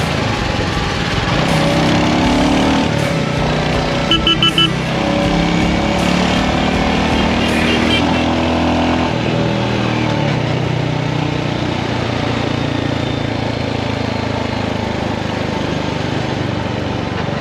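Motorcycle engine running under way on a Bajaj Pulsar fitted with an aftermarket exhaust, its note rising and falling with the throttle, over wind and traffic noise. A rapid burst of horn beeps about four seconds in.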